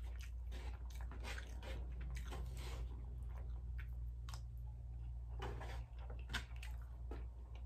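Close-miked chewing and lip-smacking of a mouthful of fried rice, in irregular wet clicks, with a plastic fork scraping and tapping in a foam takeout container, over a steady low hum.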